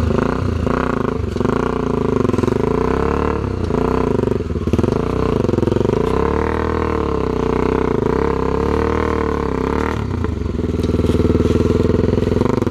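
Single-cylinder trail motorcycle engine under load, its revs rising and falling over and over as the throttle is worked, with brief drops in engine speed about four and a half and ten seconds in.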